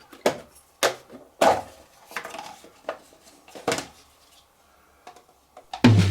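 Plastic clicks and knocks from a petrol lawn mower's air filter housing being opened and the filter handled, about six separate knocks over four seconds. Music with drums comes in near the end.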